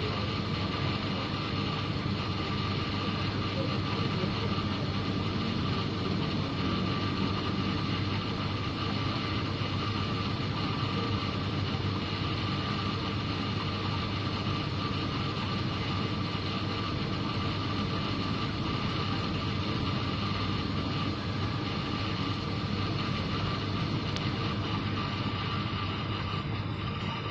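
Steady electric hum of running aquarium equipment: a low hum with a higher held tone over an even hiss, unchanging throughout.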